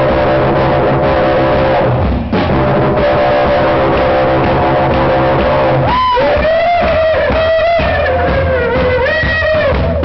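Live rock band playing loud, with electric guitar and drum kit. About six seconds in, a wavering, bending high line comes in over the band.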